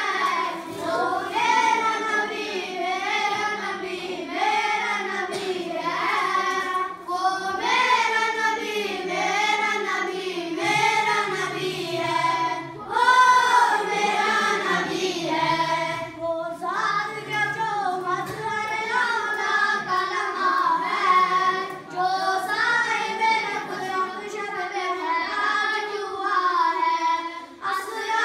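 A boy singing a naat, an Urdu devotional song, unaccompanied. The melody slides and wavers continuously, with short pauses for breath.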